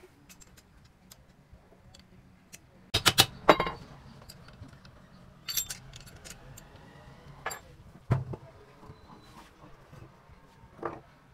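Metal clinks and clanks of a spanner and an electric pump motor's end cover being handled and fitted. A cluster of sharp clanks comes about three seconds in, then scattered lighter clinks.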